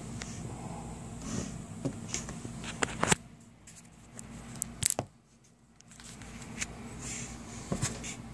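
Close handling noise: rustling and several sharp clicks and taps, over a steady low hum. The sound briefly drops away twice in the middle.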